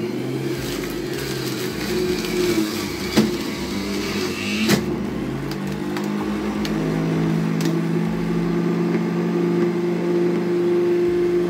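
Electric centrifugal juicer running with a steady motor hum as fruit is pressed down its feed chute, its pitch shifting about six seconds in. A couple of sharp knocks about three and five seconds in.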